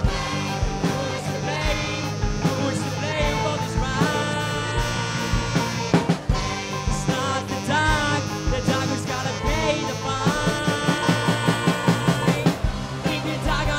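Rock band music: a drum kit keeping the beat under a lead line whose notes bend up and down, with a quick run of drum hits near the end.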